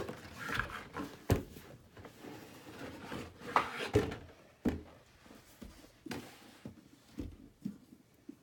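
A hairdryer's carrying case and its packaging being handled: irregular knocks and thuds as parts are lifted and set down, with softer rustling between them. The loudest knocks come about a second in and again around four seconds in.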